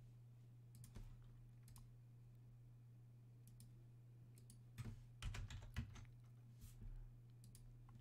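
Computer mouse and keyboard clicks, scattered and soft, with a quick run of clicks about five seconds in, over a faint low steady hum.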